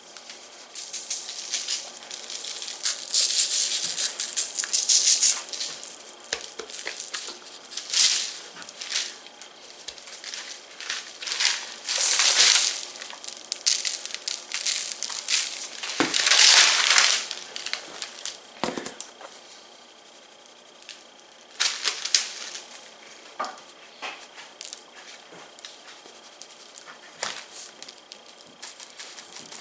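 Seasoning shaken from shaker bottles onto a raw whole chicken in several bursts of falling granules. Between them, the paper under the bird crackles and crinkles as it is lifted and turned.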